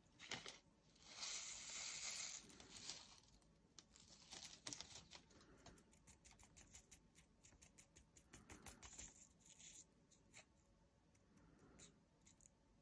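Quiet pattering and clicking of small resin diamond-painting drills being poured and shaken into a small plastic storage pot. A short stream of drills runs in about a second in, followed by scattered light clicks.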